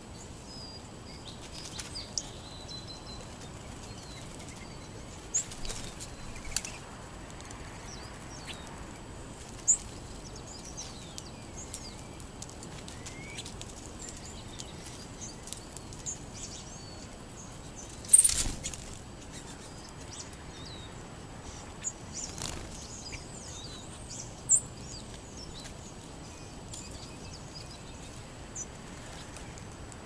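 Small ground-feeding birds such as sparrows chirping and calling in short, scattered notes over a steady outdoor hiss, with brief wing flutters as birds fly in and out. A louder burst of noise comes about eighteen seconds in.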